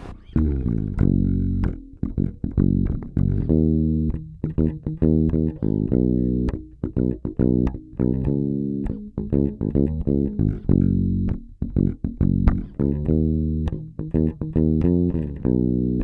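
Warwick Thumb BO Pro Series five-string bass played fingerstyle, a continuous run of plucked bass notes and riffs with a few brief stops. Both pickups are on and the bass and treble controls are set flat at the middle.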